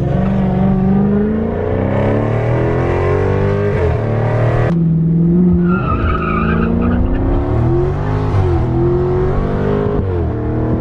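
2017 Dodge Charger Scat Pack's 6.4-litre SRT Hemi V8 accelerating hard, heard from inside the cabin, its pitch climbing and dropping back at each gear shift, several times over.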